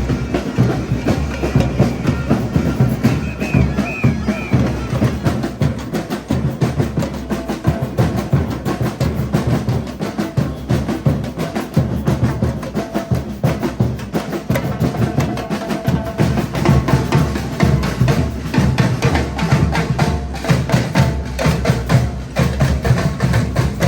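A group of protest drummers beating a fast, steady rhythm on drums, including deep bass drums.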